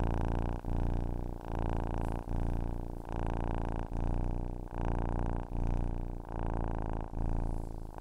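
Domestic cat purring close up, a continuous low rumble that swells and dips with each breath, just over one breath a second.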